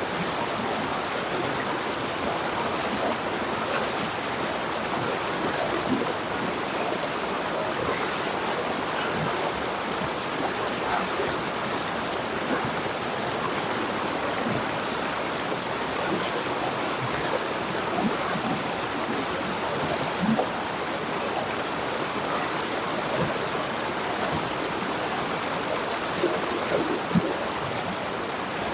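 River water flowing steadily, an even rush with small splashes picking out of it now and then.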